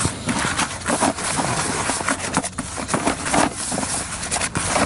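Hands mixing dampened fishing groundbait in a plastic bowl: a busy, irregular rustling and scraping of crumbly mix against the bowl.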